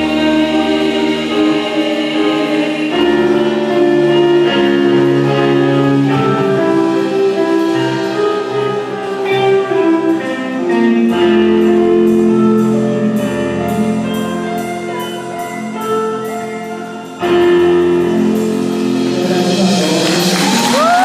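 Live rock band playing: electric guitars, keyboard and drums under a woman's singing, with sustained chords that change every second or two. The music dips briefly a little before three-quarters of the way through, comes back in loud on a held closing chord, and audience cheering starts to rise near the end.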